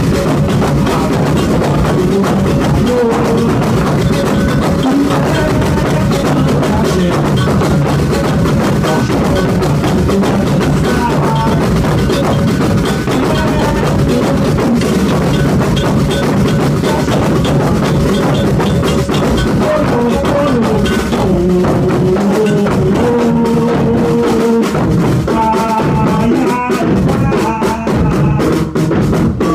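Brazilian afoxé percussion ensemble drumming steadily in the ijexá groove, with a pitched melody line moving over the drums.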